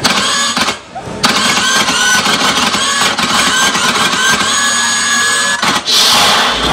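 Loud recorded soundtrack for the dance routine, played over the stage's PA speakers. It cuts out briefly twice near the start and ends in a rushing burst of noise.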